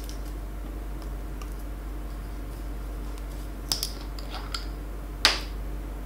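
Screw cap being twisted off a bottle: a few small clicks and crackles, then one sharper click about five seconds in, over a faint steady hum.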